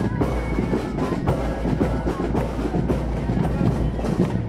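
A marching band playing, with field drums and bass drum beating prominently.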